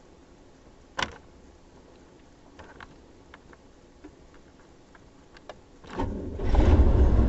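A few light clicks and taps in near quiet, then a loud, steady, low rumble begins about six and a half seconds in and keeps going.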